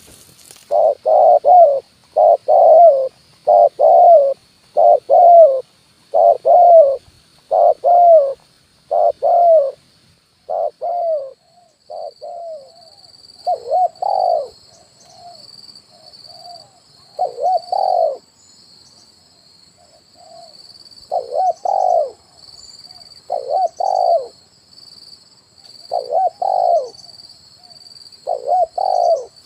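Spotted dove (tekukur) cooing over and over, its 'kuk 1' call as used as a trapper's lure: low paired coos about once a second for the first ten seconds, then spaced-out phrases with quieter coos between. A steady high buzz runs behind it and begins to pulse about halfway through.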